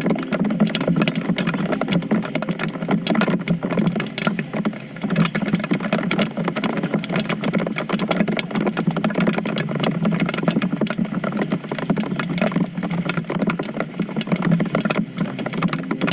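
Heavy rain: a dense, steady patter of raindrops striking close to the microphone.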